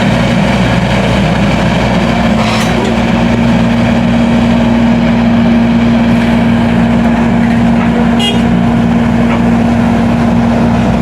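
A heavy engine running at a steady speed, a constant loud hum that does not change pitch.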